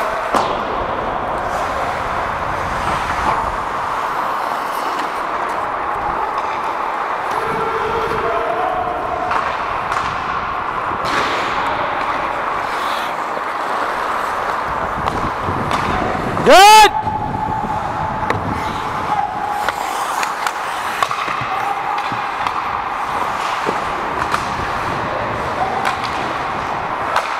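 Ice-hockey play on a rink: skates scraping the ice, sticks and puck clacking, and players calling out over a steady rink din. About two-thirds of the way through, one short, very loud blast that rises in pitch: a referee's whistle blown at close range.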